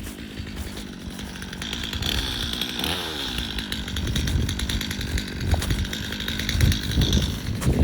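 Two-stroke chainsaw engine running after a cold start, with a steady high whine coming in about two seconds in and dropping away near the end.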